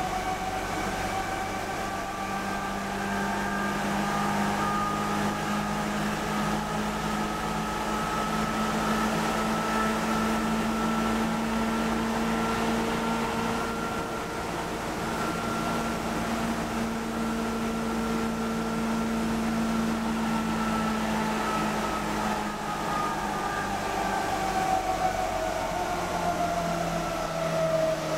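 Electric commuter train heard from inside the passenger car while running at speed: a steady rumble of wheels on rails with the whine of the electric traction motors. Near the end the whine sinks in pitch as the train begins to slow.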